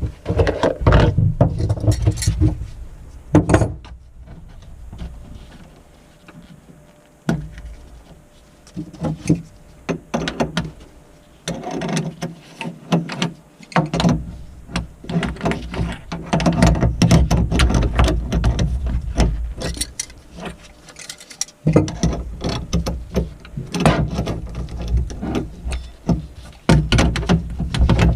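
Hand-tool work on plumbing fittings: irregular metal clicks, clanks and rattles of wrenches and fittings as a compression shutoff valve is fitted, with stretches of low rumbling handling noise and a few quieter pauses.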